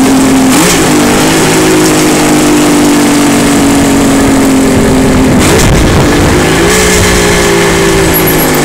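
Motorcycle engine running while riding, heard from on the bike with steady wind rush on the microphone; the engine note shifts about half a second in and again around six seconds in.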